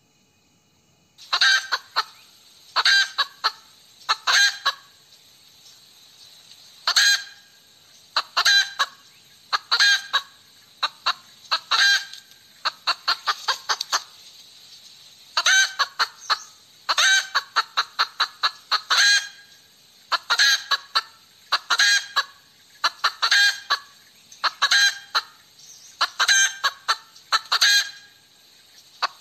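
Hen cackling: repeated bursts of sharp, clipped clucks, a burst about every one and a half seconds, starting about a second in.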